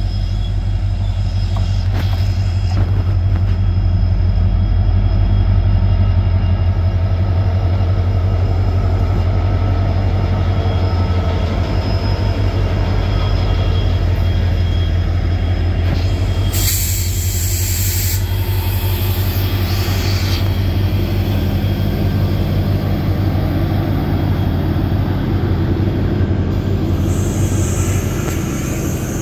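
Indian Railways diesel locomotives pulling a passenger train past at close range: a steady low engine throb with the rumble of wheels on the rails, and a brief hiss about halfway through.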